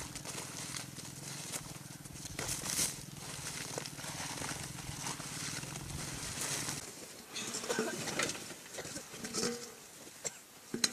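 Dried yak dung patties being scooped up by hand and dropped into a woven sack: repeated dry scrapes, crumbles and light knocks.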